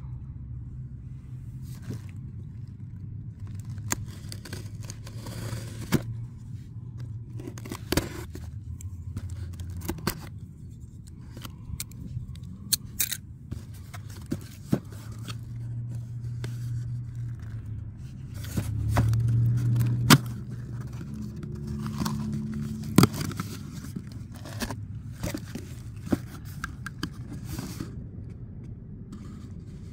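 Corrugated cardboard shipping case being cut and torn open by hand: packing tape and cardboard scraping and tearing, with scattered sharp clicks as the flaps are worked open. A steady low hum runs underneath.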